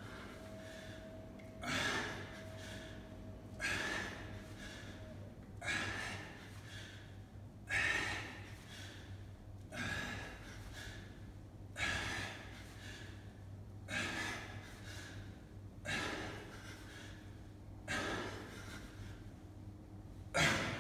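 A man's sharp, forceful breaths from exertion during kettlebell swings, one hard exhale about every two seconds, about ten in all.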